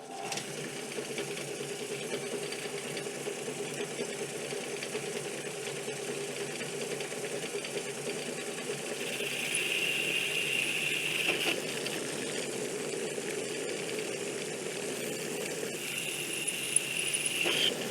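Metal lathe running while turning down the outer diameter of a steel bar, a steady mechanical hum. A higher whine from the cut comes in about halfway through and again near the end.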